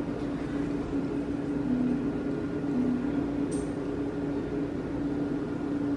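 Steady mechanical hum with one strong low tone that wavers slightly, and a faint click about three and a half seconds in.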